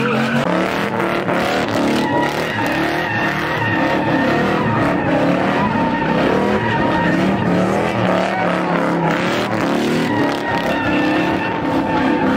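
Pickup truck doing donuts on asphalt: the engine is held at high revs, its pitch rising and falling, while the rear tires squeal without a break.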